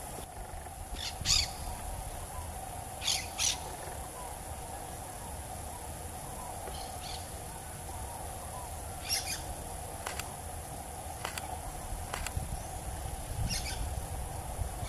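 Grey-breasted parakeets giving short, harsh call notes, scattered irregularly and some in quick pairs, while feeding in a coconut palm, over a steady background drone.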